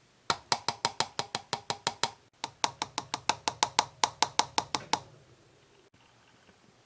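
Rapid, even tapping on a hollow plastic ceiling-fan canopy, about five or six light knocks a second, in two runs with a short pause between them. The knocks stop about five seconds in.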